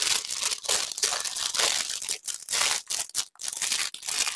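Clear plastic packaging crinkling as it is handled, in uneven bursts with short pauses.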